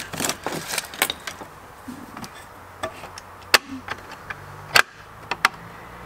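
A handful of sharp clicks and taps from fingers and a thin metal tool on the metal and plastic housing of a stop meter's ticket-printer unit as it is pressed and prodded, the loudest about three and a half and five seconds in.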